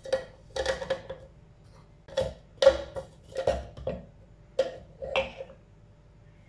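Hard plastic parts of a Philips vegetable chopper clicking and knocking together as the clear jar, purple insert and blade are fitted by hand: about eight sharp clicks, each ringing briefly.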